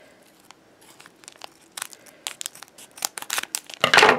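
Scissors cutting open a foil blind-bag wrapper: faint crinkling and small clicks of the foil, then a louder crackly snip near the end.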